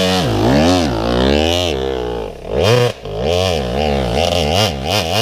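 KTM enduro dirt bike engine revving hard under load on a steep hill climb, its pitch rising and falling over and over as the throttle is worked, with two brief dips a little past halfway.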